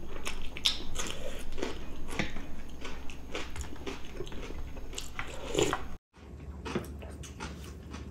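Close-up eating sounds from two people: chewing and lip smacks on braised pork ribs and potatoes, with short clicks of spoons and chopsticks against the dishes. The sound drops out for a moment about six seconds in, then the clicking and chewing go on more quietly.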